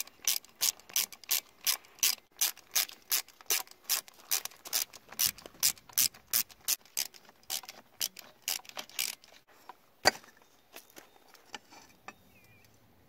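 Socket ratchet clicking in quick, even strokes, about three a second, as bolts on a KTM 85 dirt bike's ignition cover are backed out. The clicking stops about nine seconds in, followed by one sharp knock and faint handling of metal parts.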